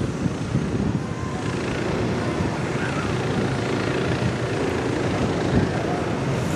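Steady low engine rumble from a harbour tug running alongside a large container ship.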